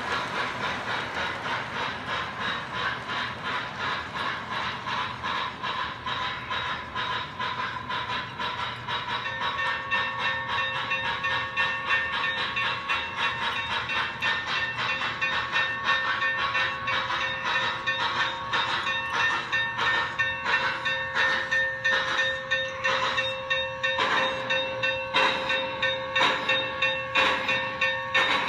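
Steam chuffing and wheel clatter from an MTH O-gauge Union Pacific Big Boy model locomotive's Proto-Sound 3.0 sound system: a fast, even chuff over the clicking of wheels on the track. It grows louder as the engine comes close near the end, and a steady high hum joins about a third of the way in.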